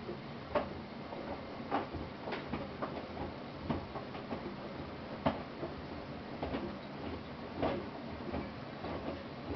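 Miele washing machine drum turning, with irregular clicks and knocks over a low steady hum. This is the noise the drum makes when rotating counterclockwise.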